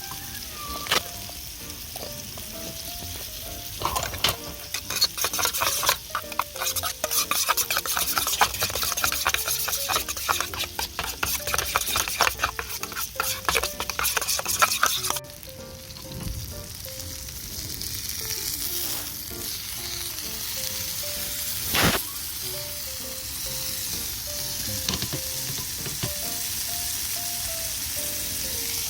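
Food sizzling and frying in a pan, spattering loudly with dense crackles for about ten seconds, then settling to a steadier sizzle with one sharp click later on. Soft background music with a simple melody plays underneath.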